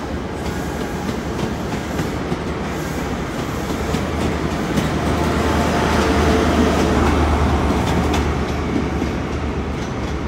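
GWR 'Castle' HST moving through the station with its Class 43 diesel power cars running, a steady low hum and rumble with a few clicks from the wheels. It grows louder about halfway through as the rear power car comes closer, then eases a little.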